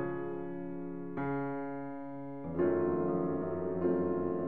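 Slow, gentle piano music: sustained chords, a new one struck about every one and a half seconds, three times, each ringing on and fading away.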